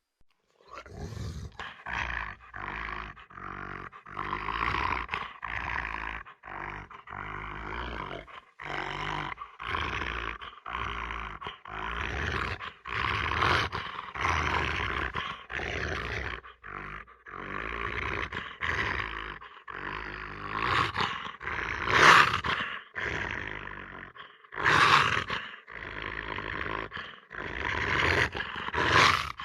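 Velociraptor creature sound effects: a quick string of short, harsh calls, one after another about once a second, with a few louder shrieks later on.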